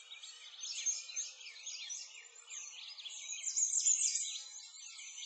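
Many small songbirds chirping and trilling at once, a dense chorus of quick, high, overlapping calls.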